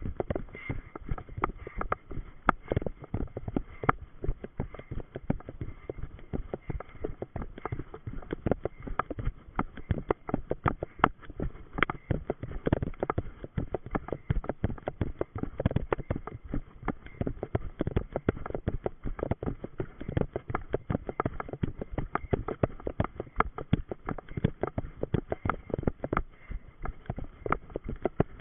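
Running footsteps on a gravel road, a steady rhythm of about three strides a second, picked up close by a camera worn by the runner.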